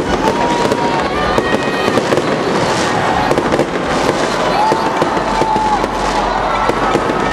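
Aerial fireworks bursting overhead, with a dense, continuous crackle of rapid small cracks and bangs.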